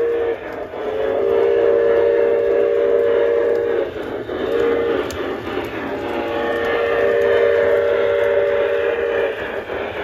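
Chime steam whistle from an LGB G-scale model steam locomotive's onboard sound system, played through its small speaker over the running sound. The end of one blast is followed by a long blast, a short one and another long one, the long-long-short-long pattern sounded for a grade crossing.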